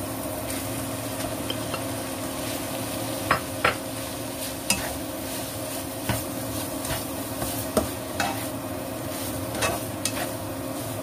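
Fried rice with beef and egg sizzling in a wok while a spatula stirs and turns it, with a steady frying hiss and several sharp knocks of the spatula against the pan.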